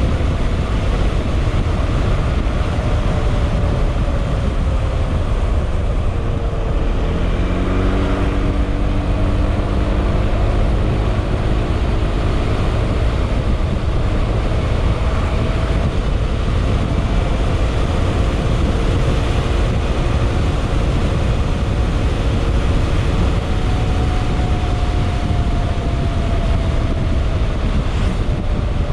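Yamaha XMAX scooter's single-cylinder engine and exhaust while riding, under a steady low rumble. The engine pitch climbs about seven seconds in as it accelerates, then holds and drifts gently.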